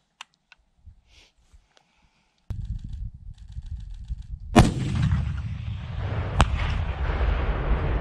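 M136E1 AT4-CS 84 mm anti-tank launcher fired once about halfway in: a single sharp blast with a long rolling echo. A second, fainter crack follows under two seconds later, the round hitting downrange. Wind rumbles on the microphone from about a third of the way in.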